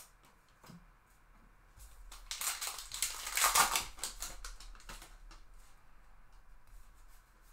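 Wrapper of a 2022 Bowman Heritage baseball card pack crinkling and tearing as it is ripped open, loudest about three and a half seconds in. Faint clicks of the cards being handled follow.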